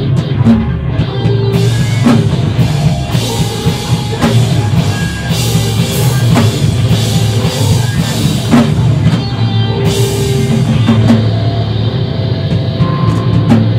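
Live screamo band playing loud: distorted electric guitars and bass over a full drum kit, with cymbal crashes several times.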